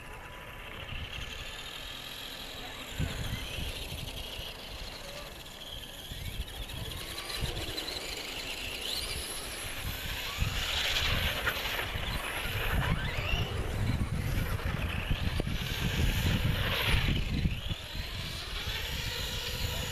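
Traxxas Skully RC monster truck driving on ice, its motor whining and repeatedly rising and falling in pitch with the throttle, over a rough low rumble. It grows louder from about ten seconds in.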